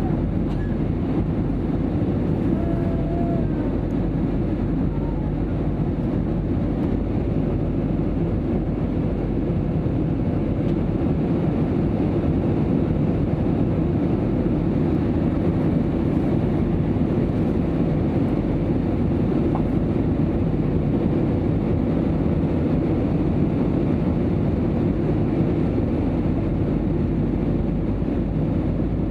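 Airbus A320 airliner cabin noise: a steady, even rumble of engines and airflow that does not change.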